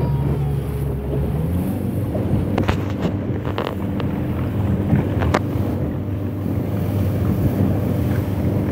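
Small boat's engine running steadily, its pitch stepping up about a second and a half in, under wind buffeting the microphone and water rushing past the hull. A few short knocks come in the middle.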